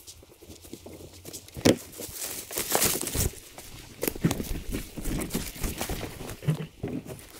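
Boots crunching through dry fallen leaves and twigs as two people walk past carrying a canoe, with one sharp crack about two seconds in.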